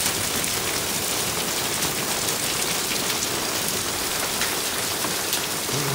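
Hail and rain falling steadily, a dense hiss with scattered sharp ticks of hailstones striking hard surfaces, the hailstorm easing a little.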